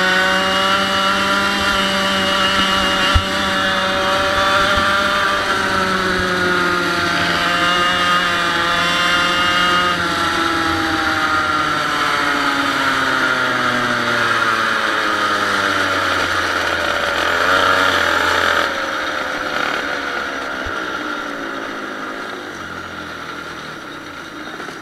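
100cc two-stroke kart engine running at high revs, its pitch rising and falling with the throttle, then sliding down as it slows. About three-quarters of the way through it eases off and the sound fades away.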